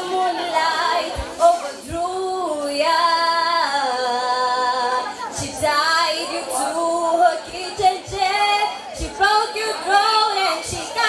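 A teenage girl singing solo through a handheld microphone, holding and sliding between notes, with a few brief low pops on the microphone.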